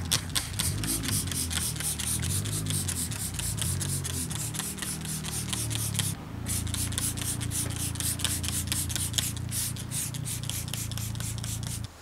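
A hand trigger spray bottle pumped rapidly, spraying foaming cleaner onto a bicycle frame: a quick run of short spray hisses, about four a second, with a brief pause about six seconds in. Low background music runs underneath.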